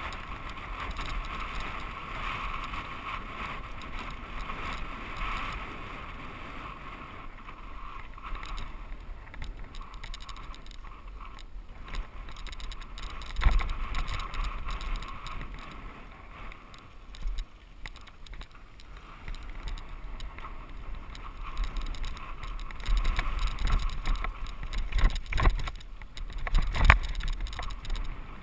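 Mountain bike riding down a dirt singletrack, recorded on a GoPro Hero HD: steady tyre and frame noise over a low wind rumble on the microphone. There is a sharp knock about halfway through and several louder knocks near the end as the bike hits rougher, rutted ground.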